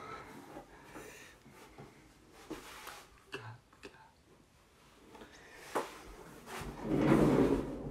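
Faint scattered clicks and small rustles of a person moving, then a louder rustling, handling noise with a low rumble for about a second near the end as he leans in close to the microphone.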